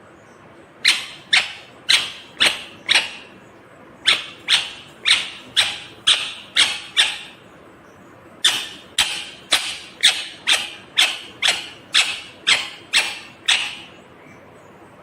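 Indian ringneck parakeet (rose-ringed parakeet) giving loud, short, sharp calls in three runs of about two a second: five, then seven, then about eleven, with brief pauses between the runs.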